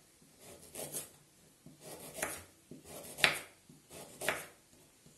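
Kitchen knife slicing a carrot into thin rounds on a wooden cutting board: four cuts about a second apart, the third the loudest.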